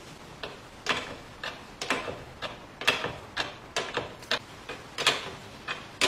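A run of sharp clicks and knocks, roughly two a second, from parts of a restored wooden hand-cranked clothes wringer being handled and fitted together.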